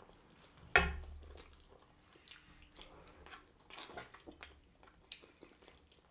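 Close-miked eating sounds: wet chewing, lip smacks and small mouth clicks as oxtail stew is eaten off the bone, with one louder knock about a second in.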